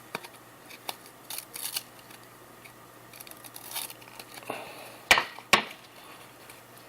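Trading cards being handled and peeled apart, with light rustling and scraping of card stock. Two sharp clicks come about half a second apart, a little past the middle.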